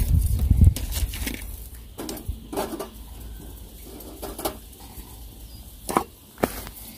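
Small steel wood-burning camp stove being handled and fed with fuel: scattered knocks and clinks of wood and metal, with a low rumble in the first second.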